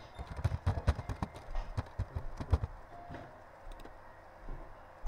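Computer keyboard typing: a quick, irregular run of key clicks for a couple of seconds, then a few scattered clicks.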